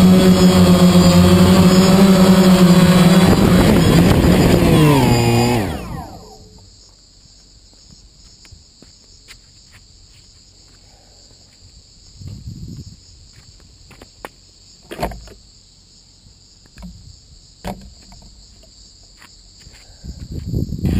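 DJI Phantom quadcopter's four rotors running with a steady high buzz, then winding down in pitch over about two seconds until they stop as it lands. Quiet follows, with a few faint knocks and clicks, and the motors begin spinning up again at the very end.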